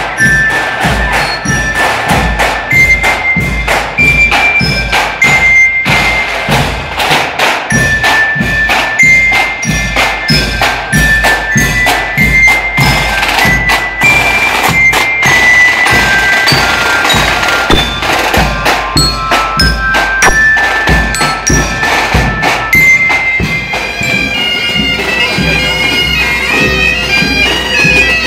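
Parade marching band: drums beating a steady march under a high, bright melody line. Near the end a denser, sustained reedy sound of bagpipes comes in and takes over.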